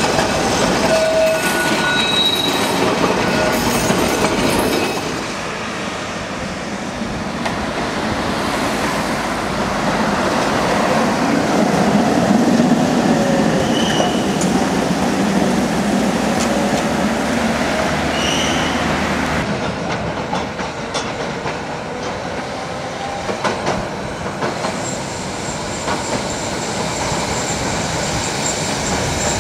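Street trams, among them vintage Peter Witt streetcars, running over street track: a steady rumble of wheels on rails, broken several times by short high wheel squeals.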